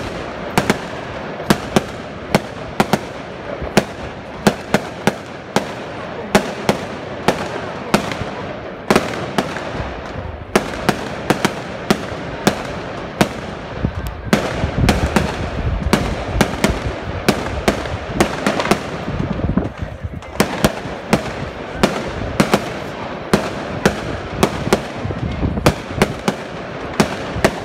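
Aerial firework shells bursting overhead during a display: a continuous string of sharp bangs, about two a second, over a steady background of noise.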